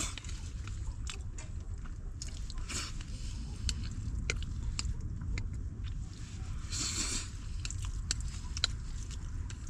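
A person eating close to the microphone: chewing, with scattered short clicks. A steady low rumble runs underneath.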